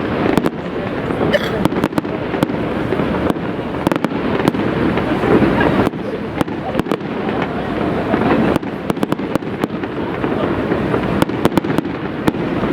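Aerial fireworks display: continuous shell bursts and crackling, with many sharp bangs, coming thickest in the second half.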